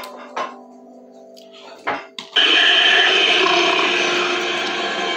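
Television soundtrack playing in the background. A quiet stretch with a few steady held tones and a couple of clicks gives way, about two and a half seconds in, to loud, dense music.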